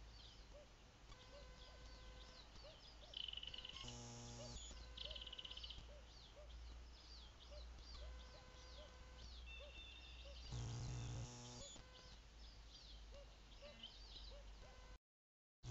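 Faint, steady chorus of small repeated high chirps, with a few short higher whistled notes. Twice, about four seconds in and again about eleven seconds in, the camera's own mechanism gives a short buzz, the second the louder.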